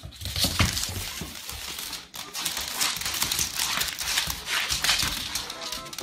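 A large dog's claws and paws scrabbling and skittering on a wooden floor: many quick, irregular clicks and knocks as it scrambles about. Near the end, music with pitched notes begins.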